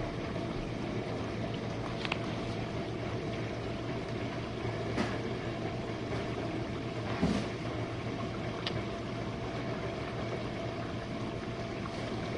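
Jenn-Air dishwasher running its wash cycle: a steady hum with a few faint clicks.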